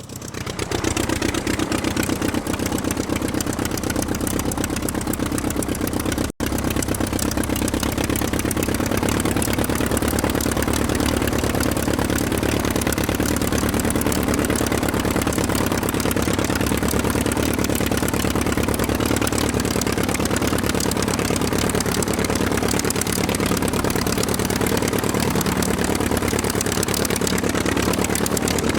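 Aircraft engine running steadily with an even, rapid firing beat. It swells up in the first second and has a split-second dropout about six seconds in.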